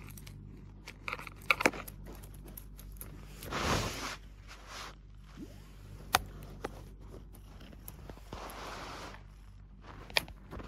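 A cat nosing and rubbing at a phone hidden in a quilt, right against the microphone: soft rustling and crackling with a few sharp clicks where it bumps the phone. The longest and loudest rustle comes about three and a half seconds in.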